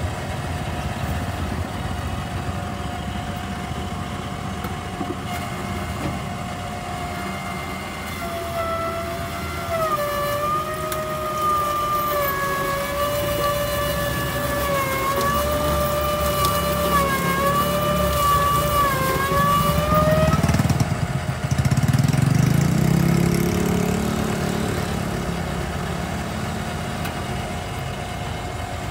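Magnum electric stainless-steel sugarcane juicer running with a steady motor whine. About ten seconds in the pitch drops and wavers as cane stalks are pressed through the rollers, then climbs back about twenty seconds in, followed by a louder low grinding rumble.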